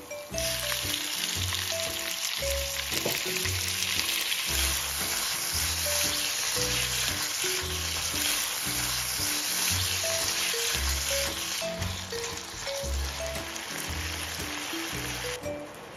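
Diced pork sizzling hard in hot oil in a wok, starting suddenly as the meat goes in and stirred with a spatula; the sizzle drops away shortly before the end. Light background music with a bass beat plays underneath.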